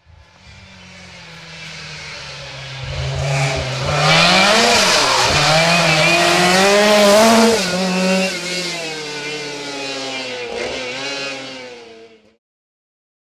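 Rally car engine revving hard as the car approaches, pitch rising and dropping repeatedly with throttle and gear changes. It grows louder, is loudest in the middle, then fades and cuts off abruptly about a second before the end.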